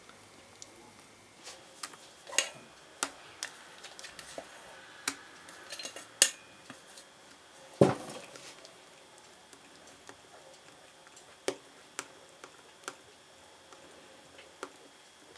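Spatula knocking and scraping against a stainless steel bowl while folding whipped cream into a liquid cream mixture: scattered sharp clicks, the loudest two about six and eight seconds in.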